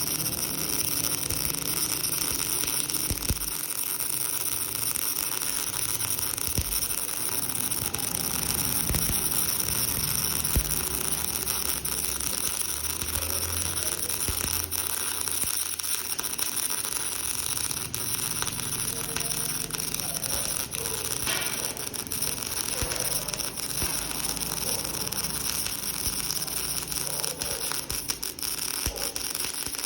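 Electric arc welding: a steady crackling hiss from the arc, with many small clicks.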